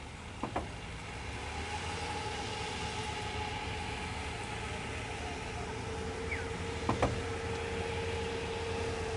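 A motor vehicle's engine running steadily, a low rumble with a faint steady whine. Two short sharp clicks sound, one about half a second in and one about seven seconds in.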